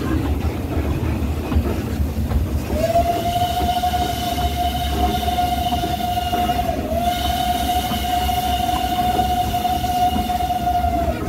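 Narrow-gauge steam locomotive's whistle sounding one long, steady blast, starting about three seconds in and lasting some eight seconds, with a brief dip in pitch near the middle. Under it, the steady rumble and clatter of the coaches running on the track.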